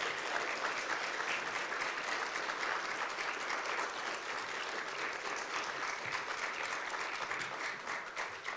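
Audience applauding, a dense, steady clapping that eases off slightly near the end.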